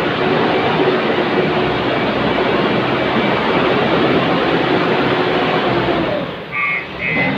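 JCB backhoe loader's diesel engine running hard while it works. About six and a half seconds in, the engine noise drops and a series of short high tones starts, repeating about twice a second.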